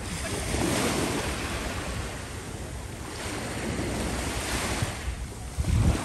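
Small waves washing in and lapping around the shallows, swelling and ebbing, with wind buffeting the microphone that is strongest as a low rumble near the end.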